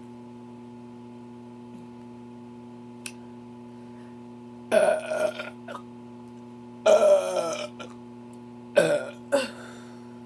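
A woman belching four times: two long burps about five and seven seconds in, then two short ones in quick succession near the end.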